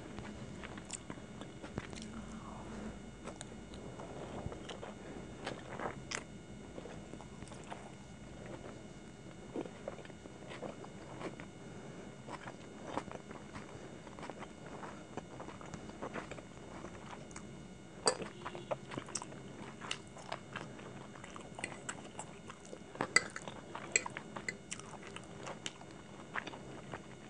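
Close-miked chewing of a fried chicken dumpling, with wet mouth sounds and scattered short crisp clicks. The clicks are thicker in the second half, with the sharpest about two-thirds of the way through.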